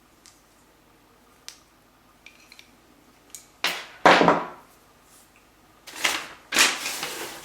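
Objects being handled on a table: a few light clicks, then two loud rustling, scraping noises, about four and about six seconds in.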